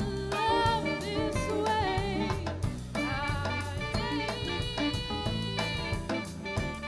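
Live jazz ensemble playing: drum kit keeping time with snare hits, bass, piano and electric guitar, with a woman singing and saxophones over them.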